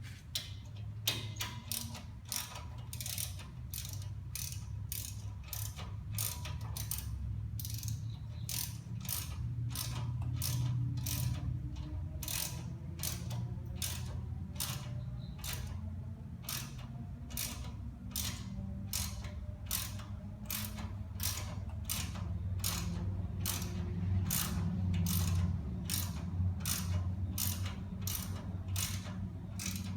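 Hand ratchet clicking steadily, about one and a half clicks a second, as it runs a wheel hub assembly's mounting bolt in. A steady low hum sits underneath.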